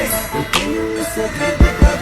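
Hip hop music track, with two heavy kick-drum hits near the end.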